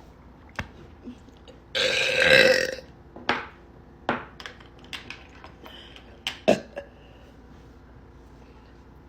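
A woman's long, loud burp lasting about a second, starting about two seconds in, followed by a few short, quieter clicks and sounds.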